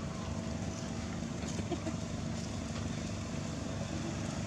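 An engine running steadily: a low, even hum with no change in pitch.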